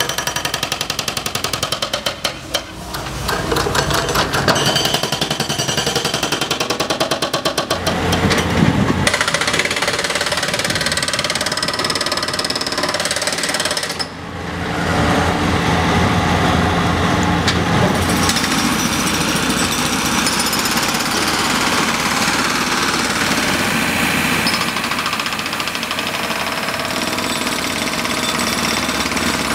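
Excavator-mounted hydraulic breaker hammering pavement, a fast continuous run of blows, with heavy diesel equipment running under it. The sound drops briefly about halfway through and comes back as a steady loud din.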